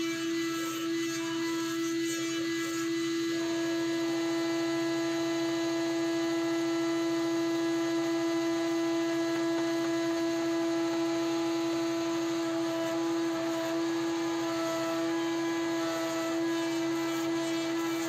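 Wood-Mizer WM4500 industrial band sawmill running and sawing through a log: a steady machine hum with a constant pitched whine that does not change.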